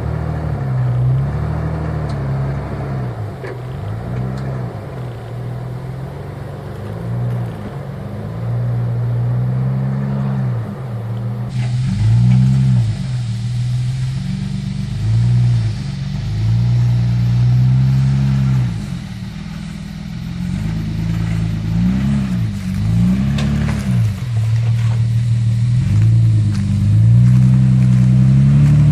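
Nissan Patrol's TB48 4.8-litre straight-six petrol engine working under load off-road, its revs rising and falling over and over in short bursts of throttle.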